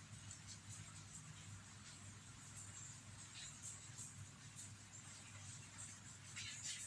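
Near silence: faint room tone with a low steady hum and a few soft ticks, a small cluster of them near the end.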